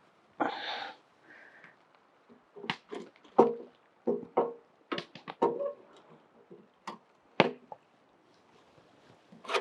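Metal parts of a GRIT Freedom Chair being handled and fitted during assembly: a short rustle near the start, then a run of irregular sharp knocks and clanks, each ringing briefly.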